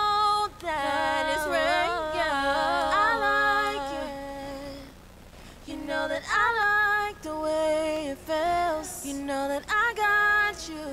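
Recorded vocal harmonies played back: several sung voices stacked in close harmony, holding and sliding between notes without clear words. They break off about four and a half seconds in and come back a second later in shorter phrases.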